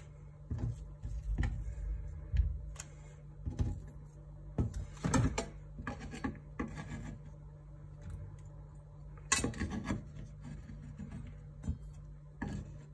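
Chopped garlic being gathered by hand and scraped off a wooden cutting board with a kitchen knife into a stainless steel bowl: scattered rubbing, scraping and light knocks of the blade and fingers on the board.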